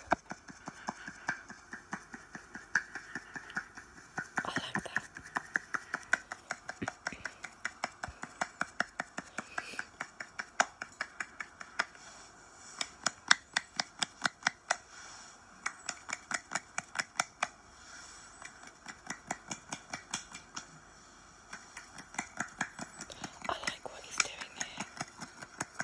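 Close-miked ASMR trigger sounds: a long run of crisp clicks, several a second, broken by a few short pauses.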